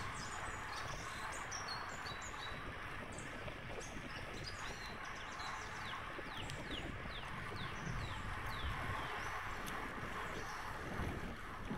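Steady wind and road noise from a bike rolling along smooth asphalt, with small birds calling a run of short, falling chirps through the first half.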